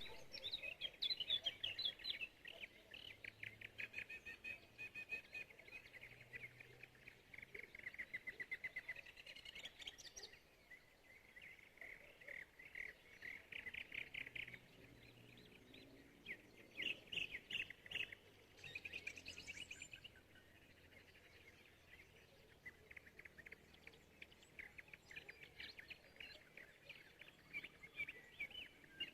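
Small birds singing faintly: high, rapid chirping trills in phrases a few seconds long, separated by short pauses.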